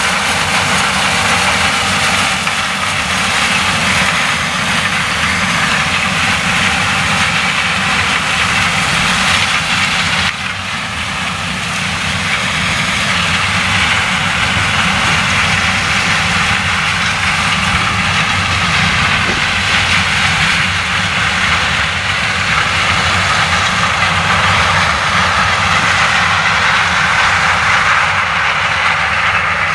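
Claas Lexion 760 TT combine harvester cutting and threshing maize with a nine-row Geringhoff corn header: loud, steady drone of the engine and threshing machinery working under load, with a brief dip in level about ten seconds in.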